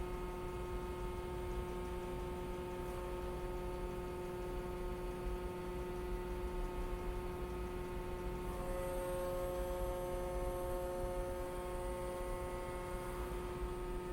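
Steady machinery hum aboard a ship at sea: a low rumble with several steady tones, one of them rising in about eight and a half seconds in and fading out near thirteen seconds.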